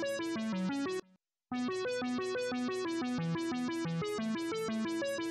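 Background music: an electronic keyboard-synthesizer melody of short, quickly repeated notes. It cuts to silence for about half a second about a second in, then carries on.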